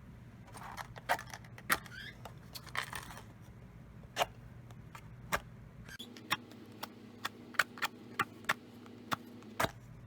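A run of sharp, irregular clicks and taps, like small hard objects being handled and set down, with two brief scraping rustles in the first three seconds, over a steady electrical hum.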